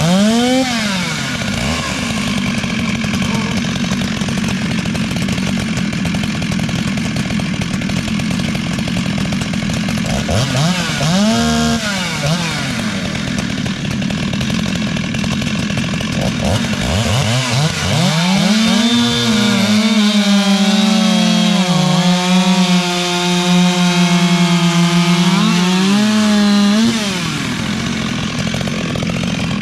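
Two ported Stihl two-stroke chainsaws, an 034 and an 036, running hard while cutting through a log, with the engines rising and falling in pitch as they load up and rev out. About 18 seconds in, one saw holds a steady high-pitched scream at full throttle, then drops off about 27 seconds in.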